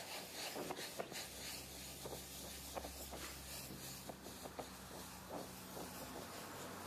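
Oxyacetylene torch with a small 000 tip burning with a steady hiss as it heats a flux-coated crack repair on thin chromoly tubing for bronze brazing, with faint irregular crackles and ticks. A low hum underneath stops near the end.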